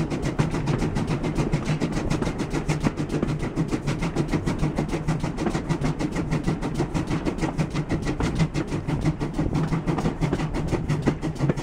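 Steam tank locomotive working hard at the head of the train, heard from the leading coach: a fast, even exhaust beat of several chuffs a second over the steady rumble of the coach wheels on the rails.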